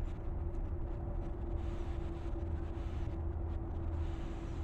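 Steady low rumble with a continuous machine hum, unchanging throughout.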